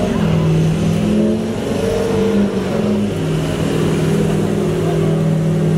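Pickup truck engine running hard at high revs as it drags a weighted pull sled, its pitch shifting slightly as it works under load.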